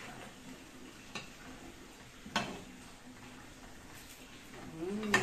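Metal utensil knocking against a wok while stirring a coconut-milk chicken broth: three sharp taps spaced over a few seconds, the loudest about halfway through.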